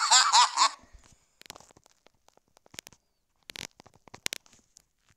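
A high-pitched, wavering cry for under a second, then faint scattered clicks and taps.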